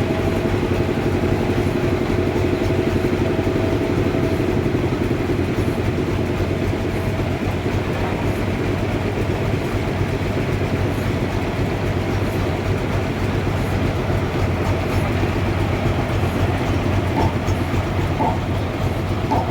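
Sawmill machinery running, a steady mechanical rumble with a strong low hum; a higher tone in it fades away about five seconds in.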